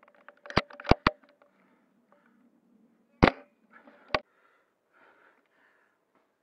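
Sharp mechanical clicks and knocks from handling and firing an airsoft bolt-action sniper rifle: three quick clicks about half a second in, then a single louder sharp crack about three seconds in and another click a second later.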